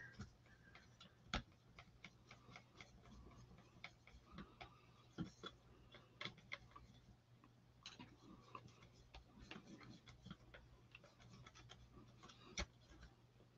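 Faint, irregular clicks and light scraping of a stir stick mixing thick ink in a small color tray, over a low steady hum.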